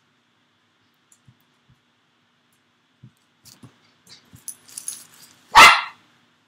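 A dog gives one short, loud bark near the end, after a few faint clicks and rustles of a boxed model horse's packaging being handled.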